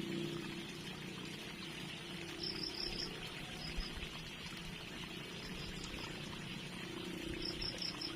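Water trickling in a small stream with insects chirping steadily, and brief high chirps twice.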